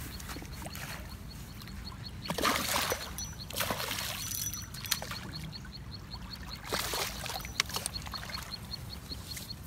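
Water splashing and sloshing at the bank in three short bouts. Underneath runs a faint, rapid, evenly repeating high ticking.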